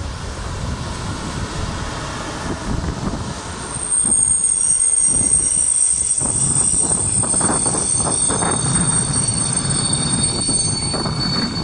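Train of double-deck coaches with a DB class 143 electric locomotive rolling past as it pulls into the station: a low rumble of wheels on the track with irregular knocks. About four seconds in it grows louder and a steady high-pitched squeal of several tones sets in from the wheels as the train slows.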